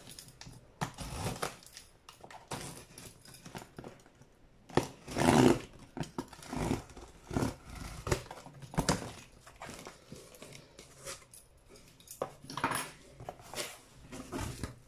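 Cardboard shipping box being opened by hand: irregular rustling, scraping and tapping of the cardboard and packing tape, loudest about five seconds in.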